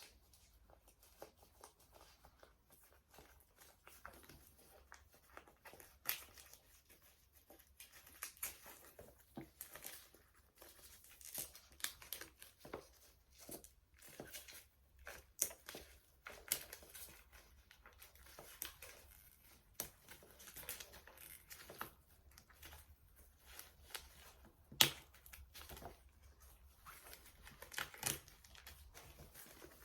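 Packaging being unwrapped by hand: irregular crinkling and tearing, with one sharper snap late on.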